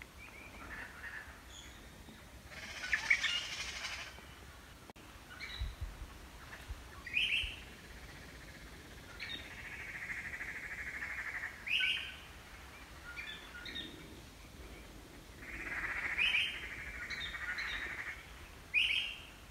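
Small birds chirping: short rising chirps every few seconds, with two longer, steady trilling calls, one around the middle and one near the end.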